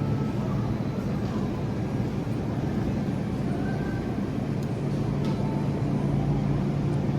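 Steady low hum and rumble of a supermarket's background, the kind made by refrigerated display cases and ventilation, with faint distant voices.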